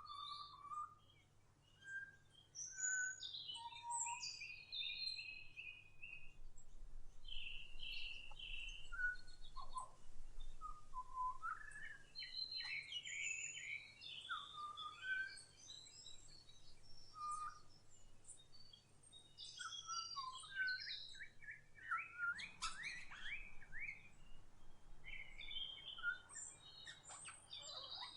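Several wild songbirds chirping and singing, short calls and whistled notes overlapping, with a fast run of quickly repeated notes near the end.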